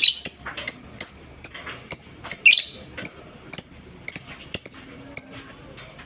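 Lovebird giving short, sharp, high-pitched chirping calls, about three a second, which stop a little after five seconds in.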